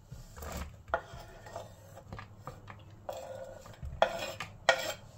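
Chopped onion, garlic and celery being scraped off a bamboo cutting board into a plastic mixing bowl of beaten eggs: short scraping strokes on the wood and a few light knocks, the loudest two near the end.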